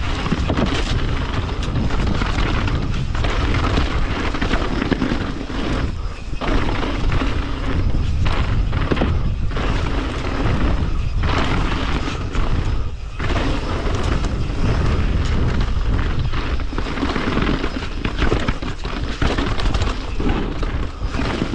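Wind buffeting an action camera's microphone on a fast mountain bike descent, mixed with the rumble and clatter of the bike over rough trail. The noise is steady and heavy in the low end, broken by frequent short knocks.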